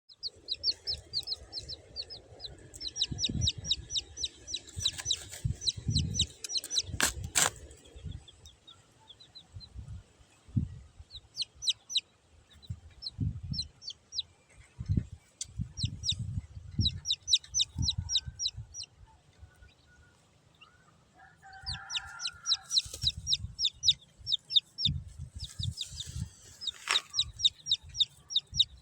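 Small birds chirping in quick trains of short, high peeps, about eight a second, broken by short pauses, with soft low thumps underneath.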